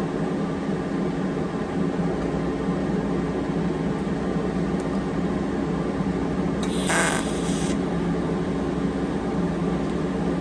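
Steady low hum, and about seven seconds in a single hiss lasting about a second: a TIG tack weld being struck on a stainless steel exhaust pipe.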